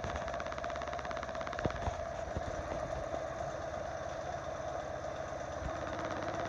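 1982 Honda Magna 750's V4 engine idling steadily, with a fast, even ticking running through it: the tick whose cause the owner is asking about.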